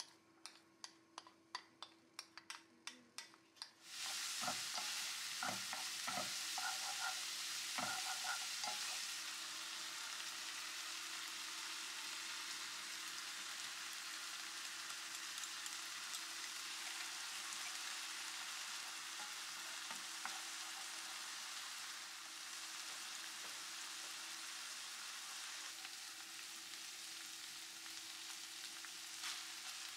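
Diced ham and vegetables frying in a ceramic-coated pan: a steady sizzle with stirring that starts abruptly about four seconds in, with a few knocks against the pan in the first seconds of it. Before the sizzle, a run of even clicks, about three a second.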